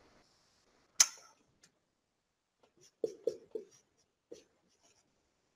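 Marker writing on a whiteboard: a sharp click about a second in, then a quick run of three short strokes about three seconds in and another just after four seconds.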